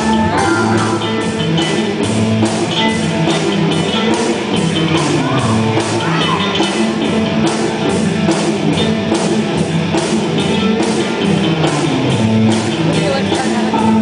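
Rock band playing live: amplified instruments over a steady drum beat.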